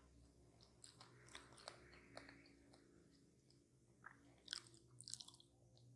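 Someone biting and chewing a pie with a crisp crust, with crackly crunches in two bursts: about a second in, and again around four and a half seconds in.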